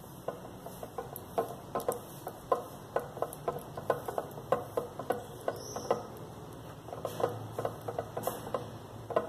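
Irregular light clicks and taps, about two or three a second, as fingers and fingernails press a piece of biscuit clay onto the side of a glass jar and knock against the glass.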